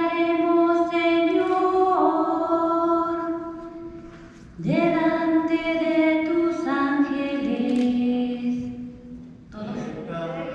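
A woman singing unaccompanied in long held notes, in phrases with short breaths between them; a new phrase begins about halfway through and another near the end. It is the sung responsorial psalm of a Catholic Mass.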